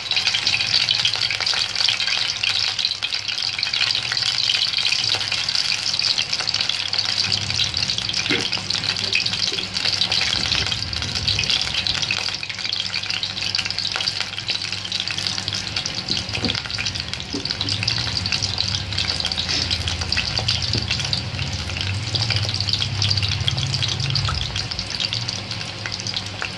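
Hot oil sizzling and crackling steadily in a frying pan as batter-coated large green chillies deep-fry in it.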